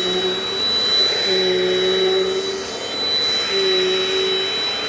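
Dirt Devil Dynamite vacuum cleaner running, a steady high motor whine over a rushing of air. A lower hum fades out and comes back every second or two.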